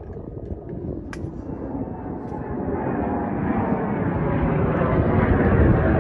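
A golf club strikes a ball off the tee with one sharp click about a second in. Then the rumble of a passing airplane grows steadily louder.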